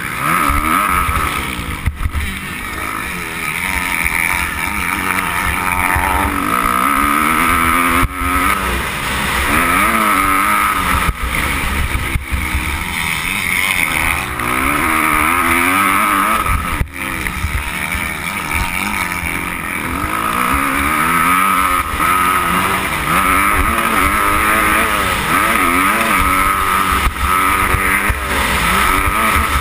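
Dirt bike engine, heard from a camera mounted on the bike, revving up and falling back again and again as the rider accelerates and shifts around a motocross track. A few sharp knocks from the bike come through along the way.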